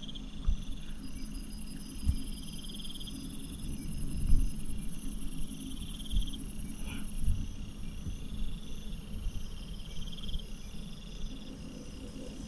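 Insects chirping in pulsed trills about a second long, repeating every two or three seconds, with a high steady buzz that stops about seven seconds in. A few low thumps, the loudest about four seconds in.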